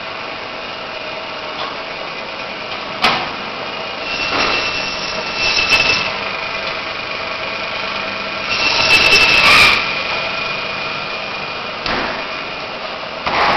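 Butcher's meat band saw running with a steady whine. The sound grows louder twice as meat is pushed through the blade, with a couple of sharp knocks in between.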